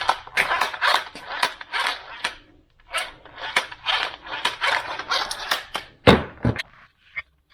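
Parts and tools being handled during throttle actuator removal: a rapid clatter of clicks and knocks, then two heavier thumps about six seconds in.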